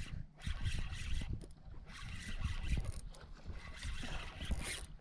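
Spinning fishing reel being cranked by hand, its rotor and gears whirring as line is wound in on a retrieve.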